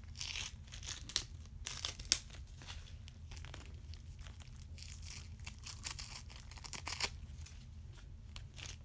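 Adhesive tape being peeled and ripped in irregular crackling tears, the sharpest about two seconds in.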